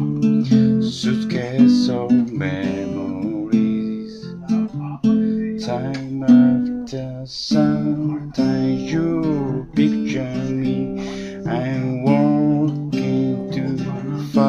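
Acoustic guitar strumming chords, with a man singing along over it.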